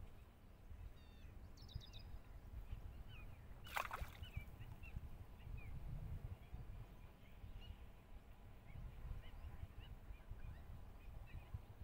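Small birds chirping in many short calls, with a quick run of them about two seconds in, over a low steady rumble. One sudden, louder sound stands out about four seconds in.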